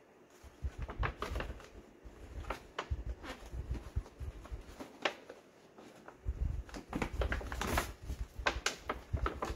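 Paper moisture barrier being peeled off the inside of a car door, crackling and rustling irregularly as it pulls free of the sticky factory tape, with heavier handling rumble in the second half.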